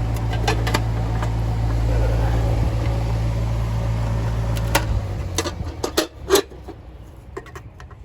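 Rooftop AC condenser unit humming steadily, its compressor not running (a bad capacitor is suspected), then the hum cuts off about five seconds in, followed by several sharp clicks and knocks.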